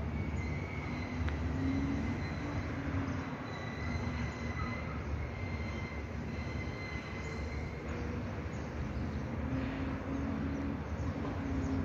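Steady low rumbling city noise heard from a height, with a faint, slightly wavering high whine.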